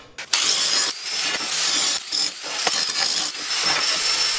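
Handheld angle grinder running on the edges of 1/4-inch steel plate, a steady gritty hiss with a thin high whine, starting a moment in.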